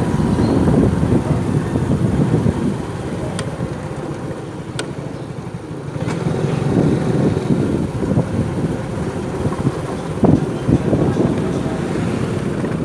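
Street traffic heard from a riding motorcycle: engines running under a continuous rushing noise, easing off for a couple of seconds around the middle.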